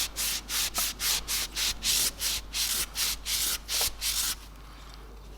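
Rapid back-and-forth rubbing strokes, about four a second, on a wet, rusty steel tool, stopping about four seconds in.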